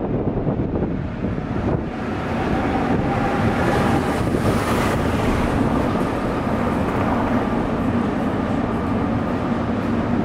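Tram running along a city street, heard from inside the car: a steady rumble of wheels on the rails, with a steady motor hum that comes in about three seconds in.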